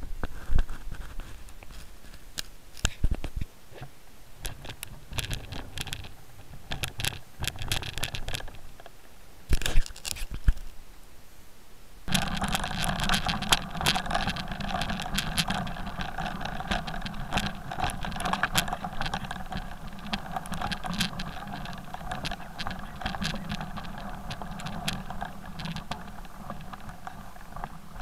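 Off-road tyres crunching and scraping over a loose, stony trail, with scattered clicks and rattles. A louder steady hum joins about twelve seconds in and runs on under the crunching.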